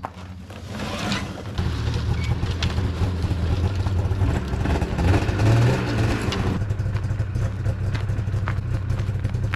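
Snowmobile engine coming up about a second and a half in and running steadily, a little louder near the middle, as the sled is driven down the trailer ramp.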